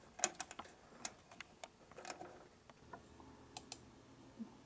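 Faint, irregular small clicks and ticks of a screwdriver and the card being handled at a motherboard's M.2 Wi-Fi slot. Two sharper clicks come near the end.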